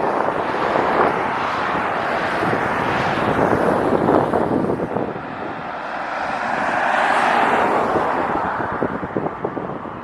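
Airbus A321neo jet engines rushing steadily, with wind buffeting the microphone; the engine noise swells about six to eight seconds in.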